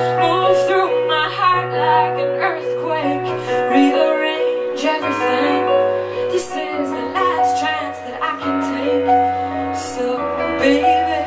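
A woman singing live over her own electric keyboard, which holds sustained chords above a bass line that steps down a note every second or two.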